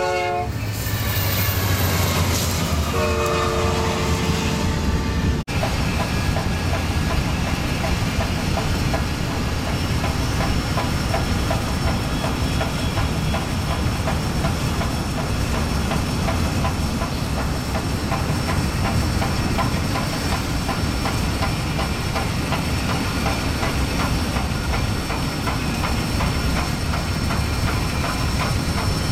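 Union Pacific 844, a 4-8-4 Northern steam locomotive, running at speed: the tail of a chime whistle blast at the start and a shorter whistle sounding about three seconds in, then the steady rumble and clatter of the engine and train rolling along the rails. A brief dropout comes about five seconds in.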